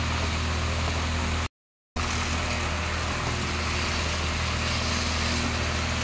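Steady low hum with an even hiss over it from a stovetop while sliced beetroot, carrot and potato fry in a pan. The sound cuts out for about half a second roughly a second and a half in.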